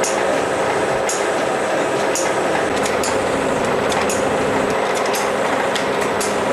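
Automatic packaging machine running: a steady mechanical hum with sharp clicks that come roughly once a second, unevenly.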